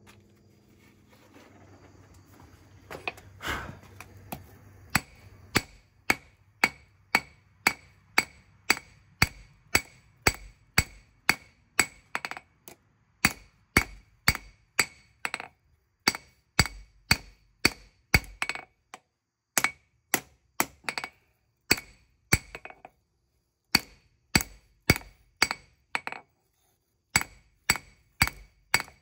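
Hand hammer striking hot leaf-spring steel on an anvil while a knife blade is forged: steady blows, about two a second, each with a bright metallic ring. Before the blows start there are a few seconds of low hum and a brief scrape, and the blows break off briefly a few times.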